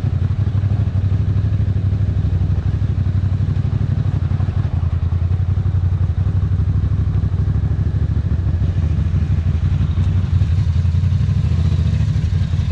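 Ducati Sportclassic's air-cooled L-twin engine running steadily while the motorcycle is ridden along the road, a strong low engine note with rapid firing pulses.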